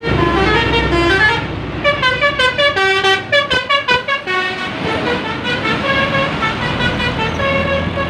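A bus's 'basuri' telolet horn, a set of air horns playing a melody: stepping notes, a run of very quick short notes in the middle, then longer held notes near the end, over road traffic.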